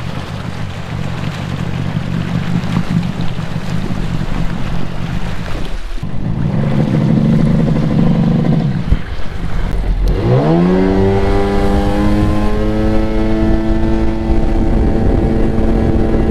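Sea-Doo XP personal watercraft's two-stroke engine running with the jet pump churning water as it pulls away slowly. About ten seconds in the throttle opens: the engine note rises quickly and then holds steady at cruising speed.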